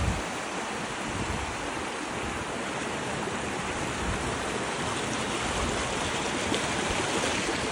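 Rushing water: a steady, even hiss of flowing water.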